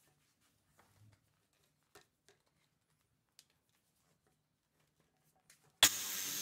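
Near silence with a few faint clicks, then near the end a Festool LS 130 EQ linear detail sander switches on suddenly and runs steadily.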